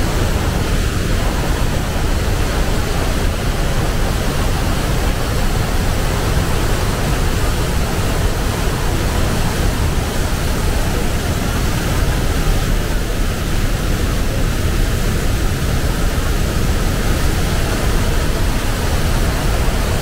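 A large, powerful waterfall pouring into a rock gorge: a loud, steady rush of falling water with a deep rumble underneath.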